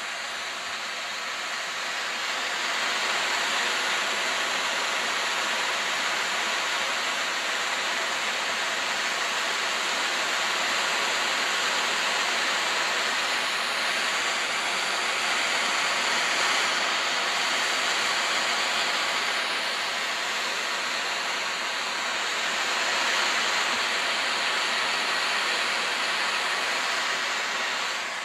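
Small propane torch flame burning with a steady hiss, growing louder over the first few seconds and then holding even.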